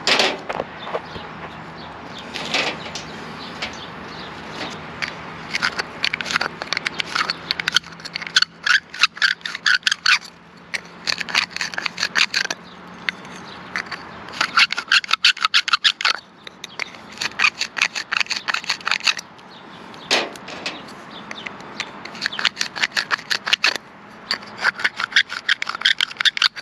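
Copper pipe being sanded clean for soldering: quick back-and-forth abrasive strokes in bursts of a few seconds, with short pauses between.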